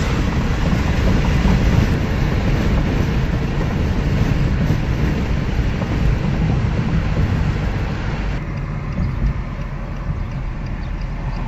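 Steady rumbling vehicle noise, like road noise from a car on the move. The higher hiss eases about eight seconds in.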